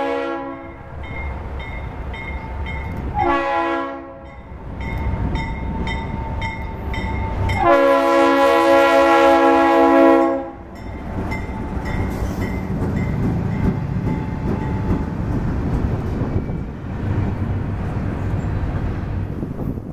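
Diesel freight locomotive's air horn, a GE C40-8W's: the end of one blast, a short blast, then a long blast of about three seconds, the close of a grade-crossing signal. The locomotives then pass with a steady engine rumble, followed by the clatter of double-stack container cars' wheels over the rail.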